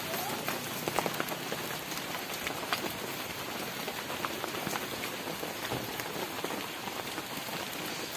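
Steady rain falling on the forest and on an umbrella held overhead, an even hiss with many individual drops ticking sharply close by.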